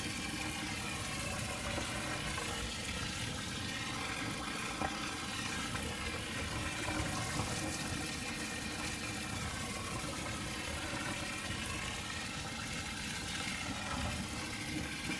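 Cold mains water running from a hose nozzle into the grain mash in a mash tun, a steady rush of water into liquid, to bring the mash temperature down by about a degree.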